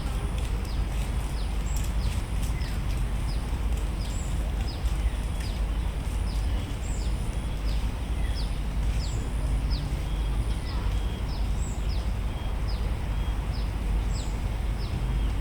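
Birds calling with short, high, downward-sliding chirps, repeated about once or twice a second, over a steady low rumble.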